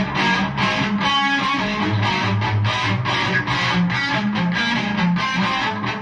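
Outro music: strummed electric guitar over a steady, driving beat.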